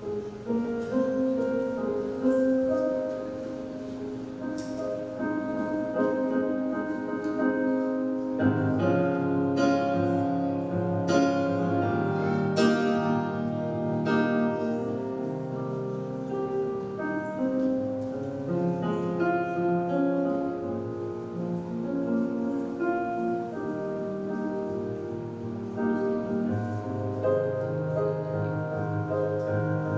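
Slow instrumental processional music led by piano, with deeper bass notes joining about eight seconds in.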